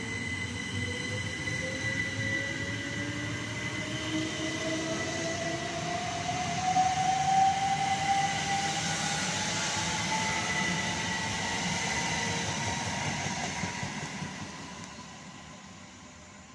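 Southern Class 377 Electrostar electric train pulling away, the whine of its traction motors rising steadily in pitch as it accelerates, over a steady high electrical tone and the rumble of the wheels on the rails. The sound fades away near the end.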